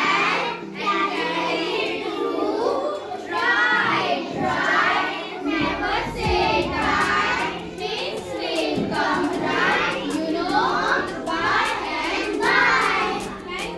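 A group of young children singing a nursery rhyme together, phrase after phrase.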